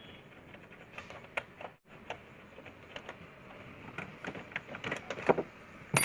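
Irregular small metallic clicks and taps of a box-end wrench working the bolts of a car door check strap, coming more often in the second half.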